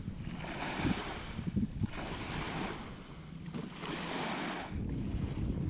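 Small waves washing up on a sandy shore in three hissing surges, each about a second long, with wind buffeting the microphone; the wind rumble grows heavier near the end.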